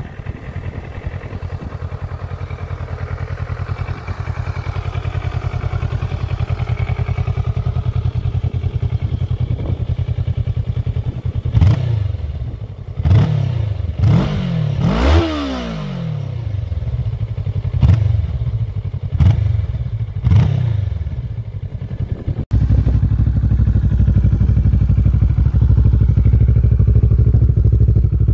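Kawasaki ER-6n's 649 cc parallel-twin engine idling steadily, then blipped in about seven quick revs. After a cut it idles louder and deeper through a short aftermarket Dominator silencer.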